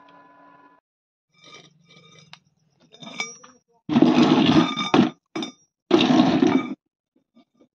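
Light metal clinks, then a square steel tube scraping along a concrete floor twice, each scrape about a second long with a faint metallic ring.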